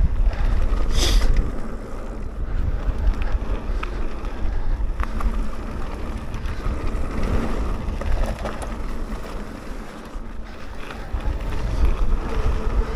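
Wind buffeting the microphone and tyres rumbling over a dirt trail as a mountain bike rides downhill, with a few sharp clicks and rattles from the bike.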